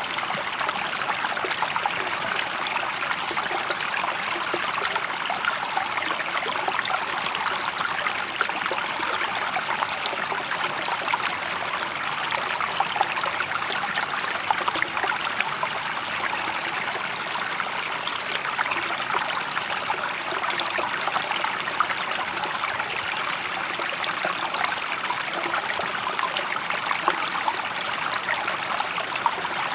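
A shallow natural stream flowing steadily, water trickling and splashing over stones with a continuous bright rush.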